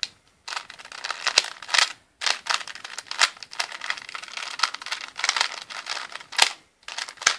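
Plastic Rubik's Cube layers being turned quickly one after another: a dense run of clicks and clatters, pausing briefly a little after two seconds and again near the end.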